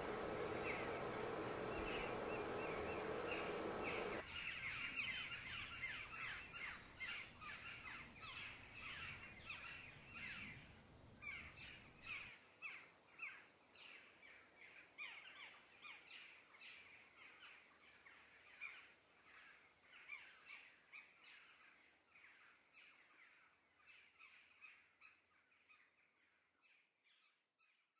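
Birds chirping and calling in quick, repeated short notes, gradually fading out toward the end. For the first four seconds a steady hiss with a hum lies underneath, and it cuts off suddenly.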